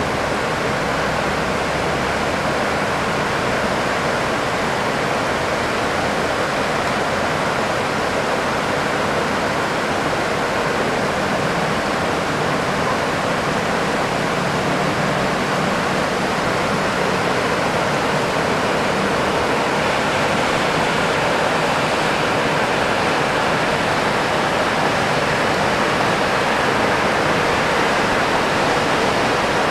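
Heavy downpour: a steady, even rush of rain that grows slightly louder over time.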